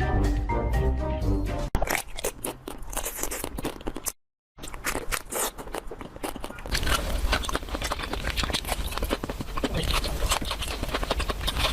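Music with pitched notes that cuts off abruptly under two seconds in, followed by dense crunching and crackling, broken by a brief silence about four seconds in and growing fuller near the end.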